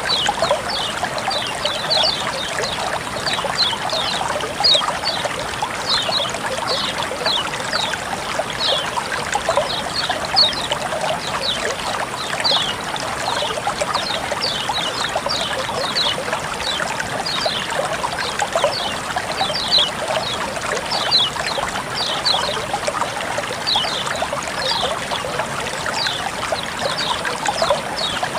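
Water flowing and trickling in a steady splashing stream, with frequent small high plinks and droplet sounds scattered irregularly through it.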